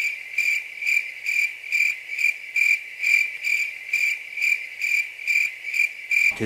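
Cricket chirping sound effect: a steady run of evenly spaced high chirps, a little over two a second, that cuts off suddenly near the end. It is the comic 'crickets' cue for a long, awkward wait.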